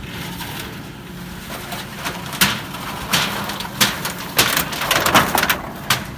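Irregular knocks and crunching clatters, several in the second half, like debris or building materials being handled and knocked about. A steady engine hum runs underneath.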